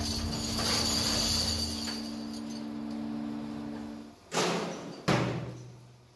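Metal motorcycle brake shoe castings clattering as they are poured into a hexagonal steel tumbling barrel, over a steady hum that stops about four seconds in. Then the barrel's steel lid plate bangs down twice, the second bang the louder.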